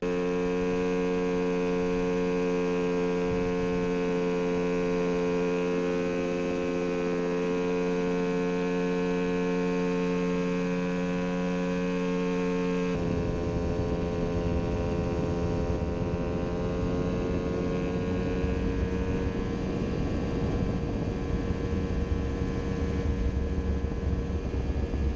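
Mosquito Air helicopter's two-stroke engine running steadily with the rotor turning, a strong even hum. About halfway through the sound changes abruptly: the engine note climbs slowly and a low wind rush grows.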